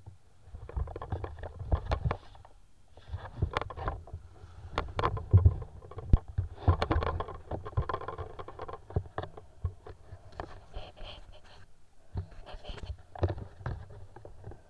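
Small waves washing up over a beach of broken shells and pebbles, coming in irregular surges with many sharp crackling clicks and a low rumble underneath. The sound eases off for a moment about twelve seconds in.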